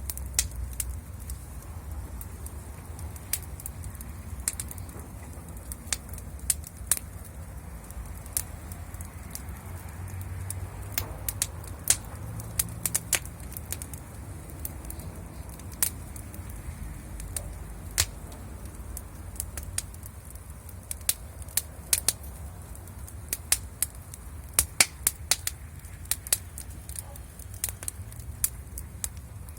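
Wood fire crackling: irregular sharp pops and snaps, sometimes in quick clusters, over a steady low rumble.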